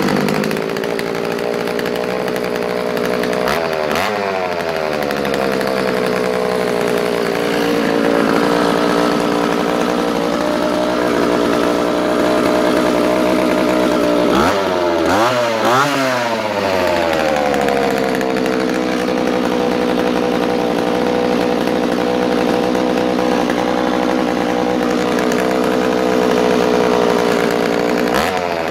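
Vintage Husqvarna 32, a 32cc two-stroke chainsaw powerhead with no bar or chain, running just after starting. It holds a steady speed, with two quick revs up and back down about halfway through.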